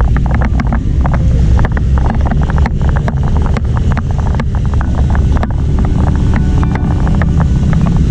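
Wind rumbling on the microphone of a camera on a bicycle riding on a wet road in rain, amid motorbike and car traffic, with many quick irregular clicks and taps.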